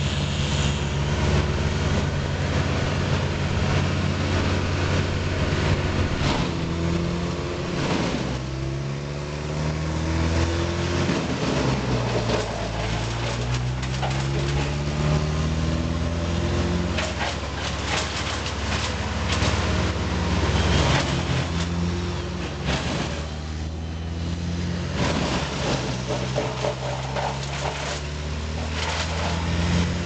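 Wood chipper engine running steadily. Its note sags and then climbs back several times as branches are fed in, with sharp cracking of wood.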